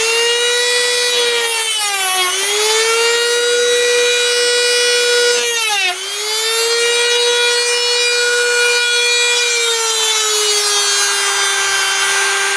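Handheld rotary tool with a small cut-off disc running at high speed, a steady high-pitched whine that sags briefly in pitch twice, about two and six seconds in, as the disc bites into the baseboard to cut the turnout wires underneath.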